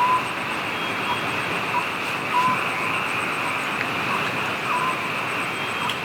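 Steady rain falling, with short chirping calls repeating about once a second at one pitch.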